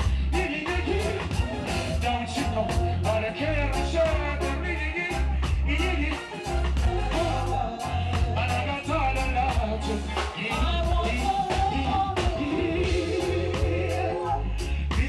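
Live reggae band playing, with a deep bass line and a drum kit keeping an even cymbal beat, and vocals singing over it.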